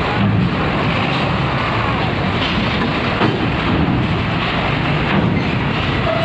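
Heavy diesel vehicle engines rumbling steadily as a tour bus drives up the loading ramp onto a ferry, with a lorry running close by.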